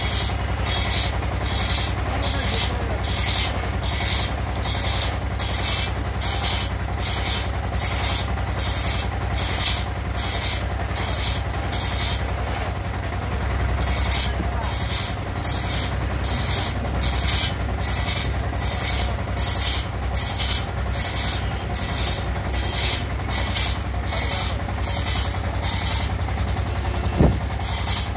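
Two-man hand saw ripping a teak plank lengthwise, rasping strokes back and forth about twice a second. The strokes break off briefly twice, about halfway through and near the end.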